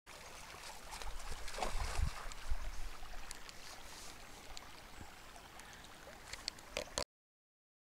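A stream running over stones, with low rumbles on the microphone in the second and third seconds and a few sharp clicks near the end; the sound cuts off abruptly about seven seconds in.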